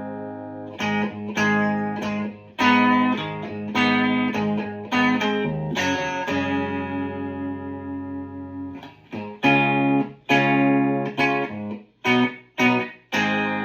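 Electric guitar with a chambered Telecaster body of mahogany and maple, playing a chord progression: chords struck and left to ring and fade, then several short, sharply struck chords near the end.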